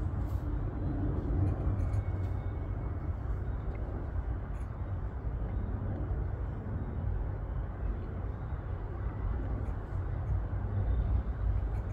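A steady low outdoor rumble, with a few faint, scattered tinkles from a small bell on a dog's collar as she moves.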